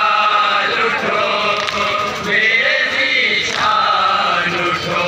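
Men chanting a Muharram noha (mourning lament) together, a lead voice on a microphone with the others joining in, in long held phrases.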